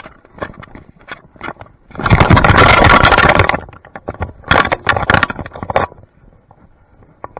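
Clicking and tapping of a dog's claws on a hard tile floor, picked up by a camera worn on the dog. About two seconds in, a loud scraping, rubbing rumble on the camera lasts about a second and a half, followed by a quick run of sharp clatters.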